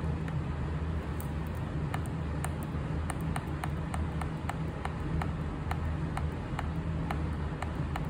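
Buttons on a Daikin wired air-conditioner remote controller clicking as they are pressed repeatedly to scroll through its menu. From about two seconds in there is a quick, uneven run of some two dozen sharp clicks, three to five a second, over a steady low rumble.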